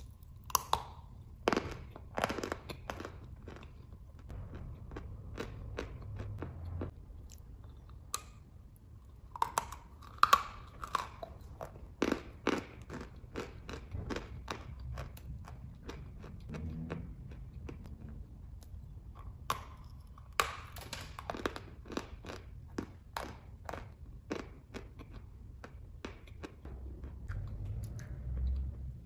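A stick of chalk being bitten and chewed close to the mouth: dry crunching in bursts of sharp crunches a few seconds apart, with quieter chewing between them.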